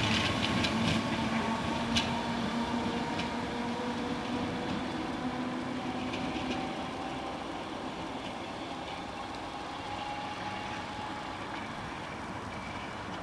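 Merseyrail PEP electric multiple unit running through the station, its traction motors whining in several steady, slightly shifting tones. Sharp clicks of the wheels over the rail come at the start and about two seconds in, and the sound slowly fades.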